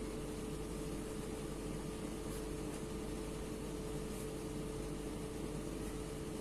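Steady background hum and hiss with one constant mid-pitched tone: room tone from running equipment.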